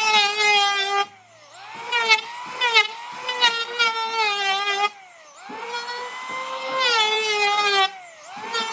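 A high-speed electric power tool working wood: its motor whine cuts out three times and spins back up each time in a rising sweep, and its pitch repeatedly dips and recovers in between.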